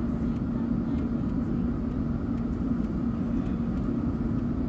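Steady low rumble and hum inside a London Underground Metropolitan line train carriage, with a constant pitched hum.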